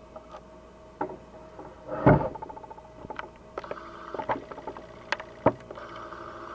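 Scattered clicks and knocks of rifle parts being handled and fitted together during reassembly of a Cooey Model 64 .22, the loudest knock about two seconds in. Under them runs a steady whine of camera noise.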